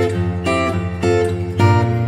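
Background music: acoustic guitar playing a melody with strummed chords.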